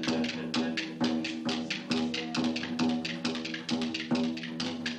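Lively Irish dance music, with sustained melody notes over a quick, steady beat of sharp taps.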